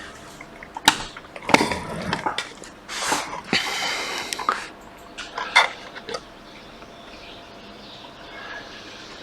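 Clicks, knocks and short scrapes of hard objects, a laptop and tools, being handled and moved about on a workbench. They are bunched in the first six seconds, with a longer scrape about four seconds in, then it goes quieter.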